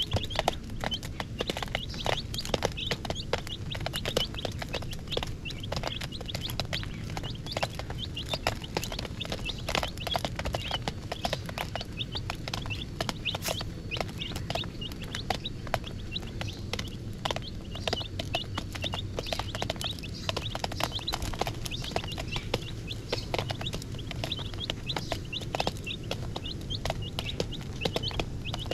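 A group of baby chicks peeping continuously in short high chirps, with many small sharp taps mixed in.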